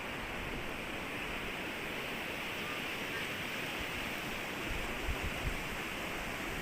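Steady rushing of a flowing mountain stream, with a few low bumps near the end.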